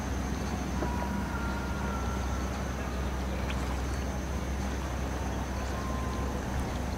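Outdoor harbor ambience: a steady low hum under a faint even hiss, with a few faint short whistles about a second in and again near the end.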